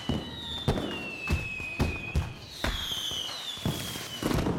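Fireworks going off: about eight sharp bangs at uneven intervals of half a second to a second, with high whistles sliding slowly downward over them.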